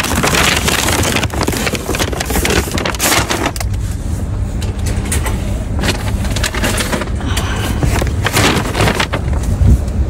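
Paper grocery bags rustling and crinkling as they are lifted from a shopping cart and set down in a car's cargo area, over a steady low rumble.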